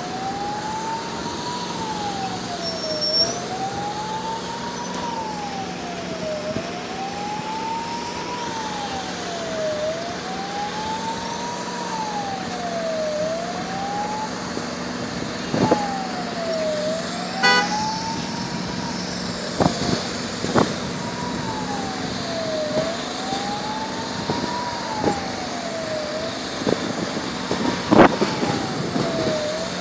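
Emergency vehicle siren wailing, its pitch rising and falling slowly about once every three seconds and breaking off briefly about halfway through, over a steady low hum of engines. Several sharp knocks come through, the loudest near the end.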